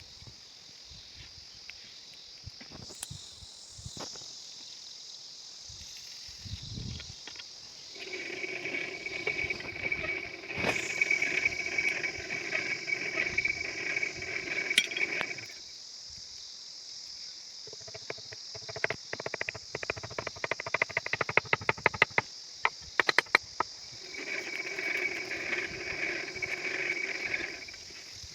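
Insects chirring steadily throughout, with a steady mechanical whine of several stacked tones twice for a few seconds, and in between a quick run of sharp metal strikes, typical of a blacksmith hammering iron.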